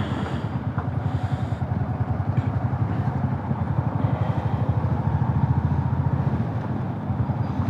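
Motorcycle engine running at a steady pace while riding, its firing pulses dense and even.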